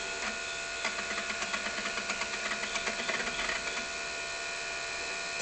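Amiga A590 hard drive running with a steady hum. From about one to four seconds in, its heads chatter in quick irregular ticks as the Amiga boots and loads from it.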